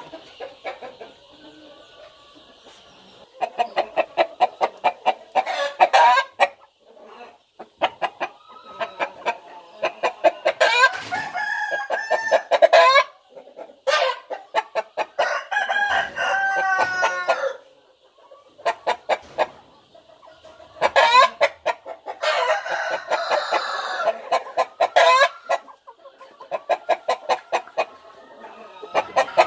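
Rooster crowing several times, with runs of rapid clucking between the crows.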